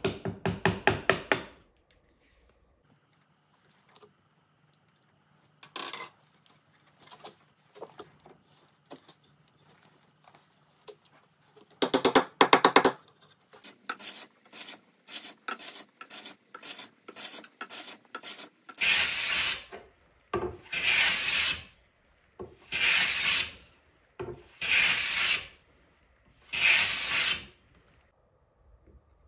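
Hand plane shaving the edge of a thin board: a run of short, quick strokes, then five longer strokes about two seconds apart. It opens with a brief burst of a chisel scraping through the waste of a wooden joint.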